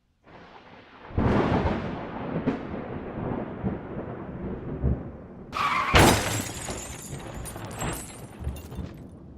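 Thunder: a rolling rumble that starts about a second in, then a sharper, louder crack with crackling around the middle that slowly rumbles away.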